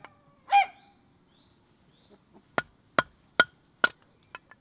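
A bird calls once near the start. About two and a half seconds in come four sharp knocks, evenly spaced a little under half a second apart, then two lighter taps: a wooden baton striking the spine of a knife to split firewood (batoning).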